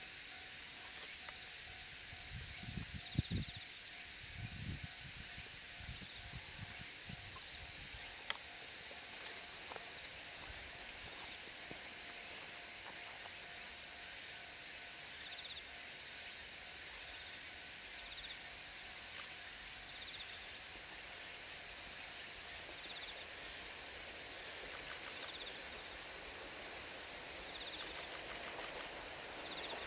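Quiet rural ambience: a steady hiss with faint insect chirps repeating every couple of seconds, and a few low bumps in the first several seconds. Near the end the distant running of a Kominato Railway diesel railcar begins to rise as it approaches.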